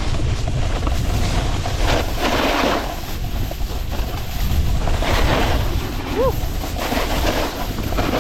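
Wind buffeting the camera microphone during a fast snowboard descent, with swells of hiss from the snowboard's edge scraping across the snow as it carves, about two and five seconds in.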